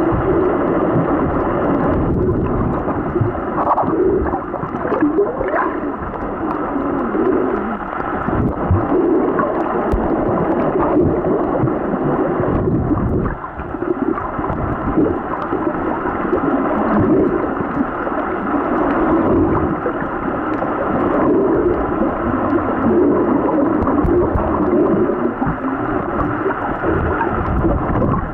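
Muffled underwater water noise heard through a camera held just below the surface: steady sloshing and gurgling, dull and with no high end.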